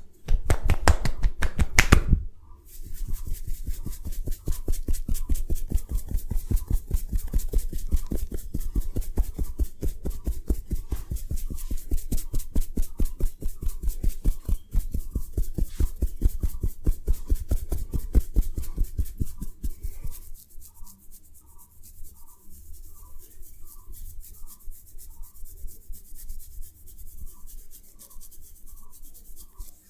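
Rapid percussive massage strikes, many a second, tapping on a person's body. Loud for the first couple of seconds, a brief break, then a steady run that turns softer about two-thirds of the way in.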